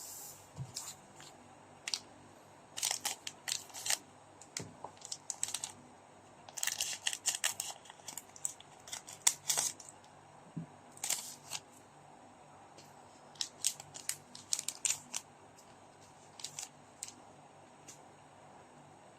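Trading cards and their packaging being handled by hand: clusters of short crinkles, rustles and clicks that come and go, the loudest about halfway through, with a quiet hiss in the gaps.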